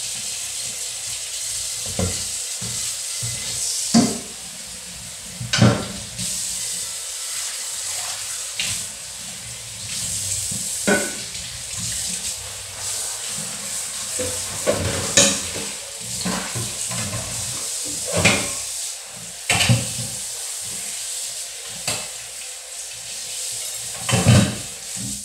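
Kitchen faucet running steadily into a stainless-steel sink as pots and pans are washed, with irregular clanks of metal cookware knocking against the sink and each other.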